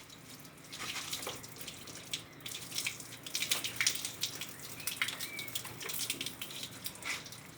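Water running and splashing in uneven spatters: reused washing-machine water being poured onto a car to wash it.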